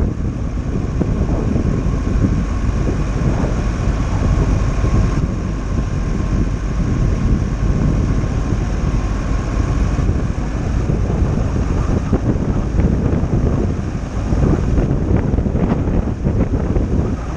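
Wind buffeting the microphone over the road and tyre noise of a VW T6 camper van driving downhill, with a faint steady whine through the first half.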